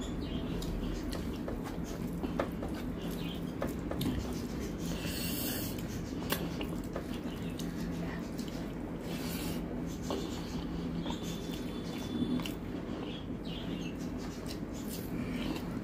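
Hand mixing rice with egg and chicken curry on a steel plate and eating it: soft squishing of the rice and gravy, scattered small clicks and taps, and chewing, over a steady low hum.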